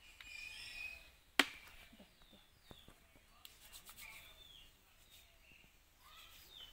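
A single sharp click or snap about a second and a half in, over a quiet outdoor background with faint high chirps.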